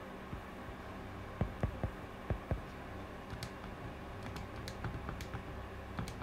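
Light taps and clicks of a stylus writing on a tablet screen, duller thumps in the first half and sharper, higher clicks in the second half, over a faint steady hum.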